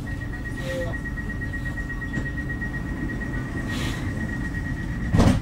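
Stockholm X60B commuter train's door-closing warning: a steady high beep for about five seconds, cut off by a loud thump as the doors shut. A low steady hum from the standing train's equipment runs underneath.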